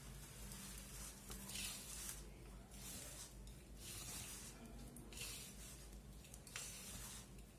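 Hands kneading and rubbing a crumbly rice-flour dough of mashed jackfruit seeds and fenugreek leaves in a stainless steel bowl, with water sprinkled in. The strokes are faint, soft swishes that repeat about every half to one second.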